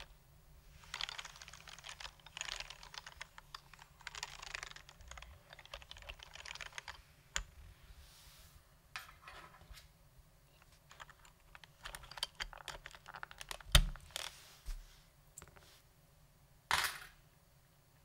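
Typing on a stock, unlubed HHKB Pro 2 keyboard with Topre electrostatic capacitive switches. Fast bursts of keystrokes are followed by sparser single presses, and two sharper, louder knocks come late on, the first the loudest.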